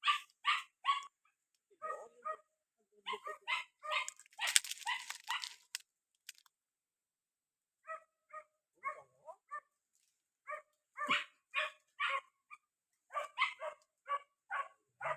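A dog barking at a porcupine in quick runs of short, high barks, about three to four a second. A burst of rustling noise comes in the middle, followed by a short pause before the barking starts again.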